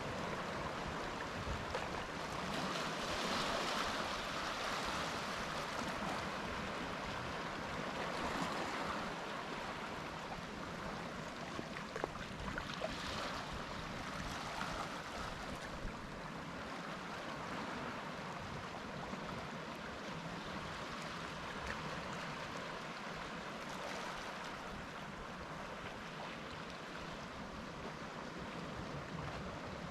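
Sea surf washing onto the shore: a steady hiss of breaking waves that swells and fades every few seconds as each wave comes in.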